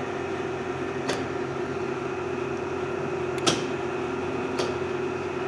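Hardinge HLV-EV tool room lathe running in low range at a few hundred RPM, a steady motor and spindle hum. A few light ticks sound over it.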